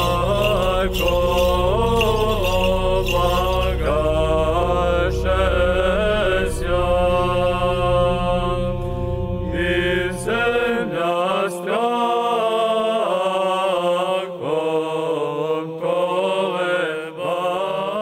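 Orthodox church chant: voices sing a slow, melismatic melody with held notes over a low sustained drone. The drone drops out about eleven seconds in, leaving the melody alone.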